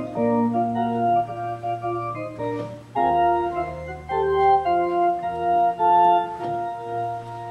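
Organ playing slow, held chords that change every second or so, with a deeper bass note coming in about three seconds in.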